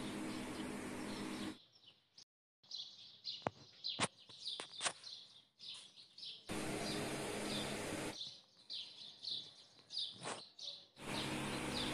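Birds chirping repeatedly in the background, short high chirps a few times a second. Under them a steady hum with hiss cuts in and out abruptly, and a few sharp clicks sound in the quieter middle stretch.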